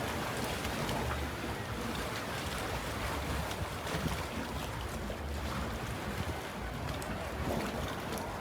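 Steady rush of wind and sea water with a low, uneven rumble of wind buffeting the microphone.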